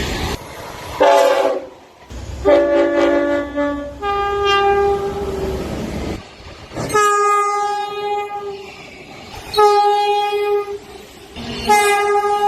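Locomotive horn sounding in a series of about six blasts, some a chord of several notes and others a single note. Some of the notes sag slightly in pitch as the train passes (the Doppler effect). Between the blasts there is a low rumble of the train running by.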